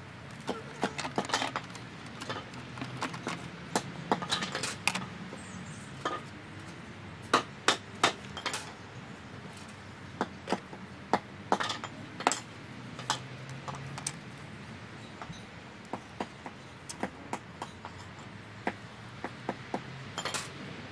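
Irregular sharp taps and clicks, often in quick clusters of two to four, over a faint steady background.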